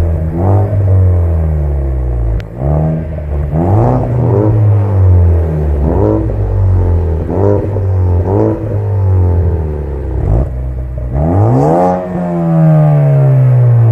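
Ford Focus ST MK3 engines and exhausts being revved in a sound check: repeated short rev blips that rise and fall about once a second. Near the end comes one longer rev that falls away slowly.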